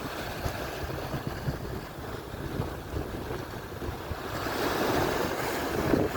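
Ocean surf washing onto the shore, swelling into a louder breaking, hissing wave about two-thirds of the way through. Wind buffets the microphone with a low rumble throughout.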